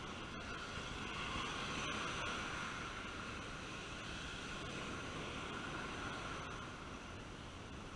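Ocean surf breaking and washing up a sandy beach: a steady rushing noise that swells slightly between about one and two and a half seconds in.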